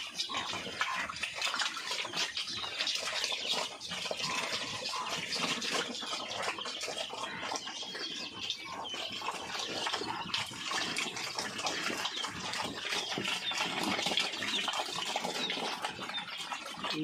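Pigs eating from a trough of watery feed: continuous slurping and splashing as they push their snouts through the liquid.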